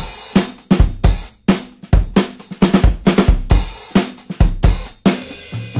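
Background music: a rock drum kit playing a driving beat of kick drum, snare and cymbals.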